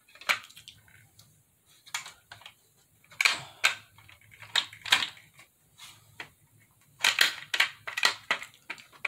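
Black plastic legs of a rollabout hair dryer stand being worked into the stand's plastic base hub: a string of sharp plastic clicks, knocks and rattles, bunched about three seconds in, around five seconds, and again near the end.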